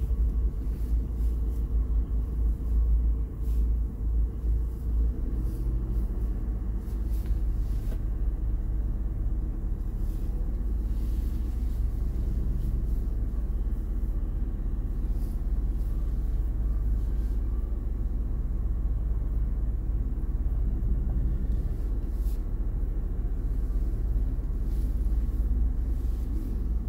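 Camper van driving slowly: a steady low engine and road rumble heard from inside the cab.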